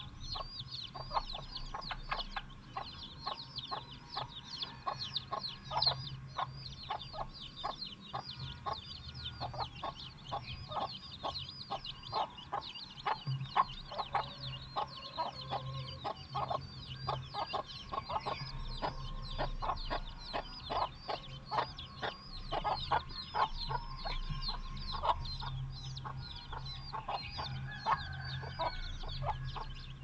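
Domestic chicks peeping nonstop in quick, high, falling cheeps while they peck at rice grains, with a hen's clucking underneath.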